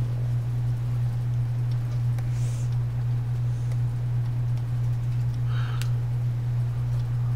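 A steady low hum, with faint brief rustles about two and a half seconds in and again near six seconds, the second ending in a light tick.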